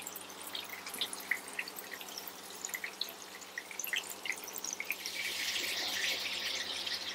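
Raw-mince kebab patties shallow-frying in hot oil in a frying pan: scattered pops and crackles of sizzling oil, turning into a denser, steady sizzle about five seconds in.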